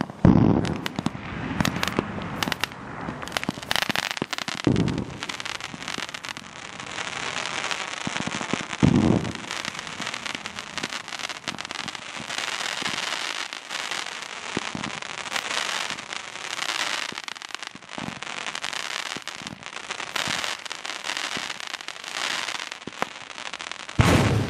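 Dominator Mega Mini 1.4G consumer fireworks cake firing: a rapid string of shots with a dense crackle of many small pops throughout. Heavier booms come about five and nine seconds in, and again near the end.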